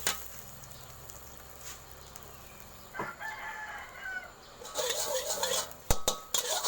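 A rooster crows once, about three seconds in, a call of about a second and a half. Near the end a spatula clatters and scrapes in a metal wok, with a couple of sharp knocks.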